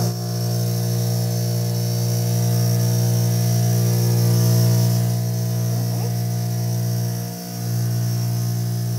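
Electric cotton candy machine running: a steady low hum from the motor spinning the sugar head, with one short dip a little over seven seconds in.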